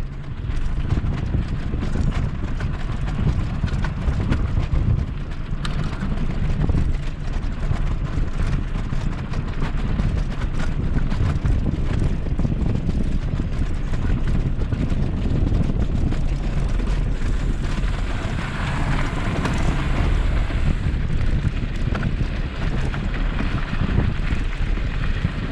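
Wind buffeting the microphone over the rumble of bicycle tyres rolling across the planks of a wooden trail bridge, with a steady run of small clicks and clatters from the deck, then rolling on gravel near the end.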